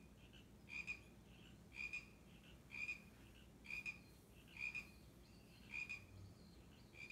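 Animal calls from a cat-entertainment DVD playing on a TV: short high calls of two or three quick notes, repeating about once a second, faint.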